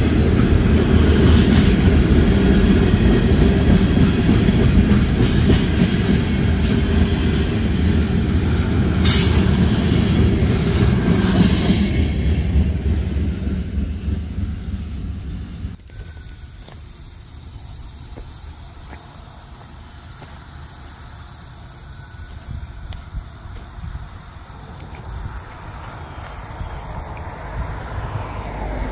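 Freight train of boxcars and covered hopper cars rolling past at close range, a steady loud rumble of wheels on rail with a brief high screech about nine seconds in. The rumble dies away once the last car has passed, leaving a much quieter stretch that swells again near the end as a second train's locomotive approaches.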